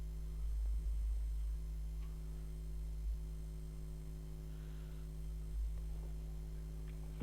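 Steady low electrical mains hum with a few evenly spaced overtones, and a couple of faint short taps about three and five and a half seconds in.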